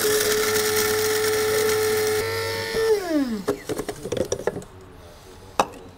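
Electric coffee grinder motor running with a steady whirring hum for about three seconds, its pitch stepping up slightly just after two seconds in, then switched off and winding down in falling pitch. A few light clicks and clinks follow.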